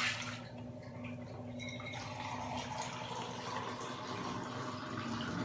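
Water being poured from a glass into a steel pot, trickling and splashing, steadier from about two seconds in.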